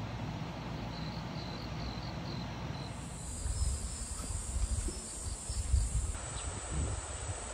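Insects calling: a slow, even run of short high chirps, then from about three seconds in a steady, very high-pitched trill. Low rumbles rise and fall in the middle.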